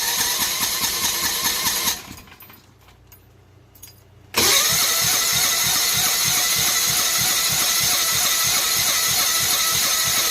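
Go-kart's small engine being cranked by its starter, with about five evenly spaced compression pulses a second, but not catching: still not starting. The cranking stops about two seconds in and starts again about four seconds in for a longer try.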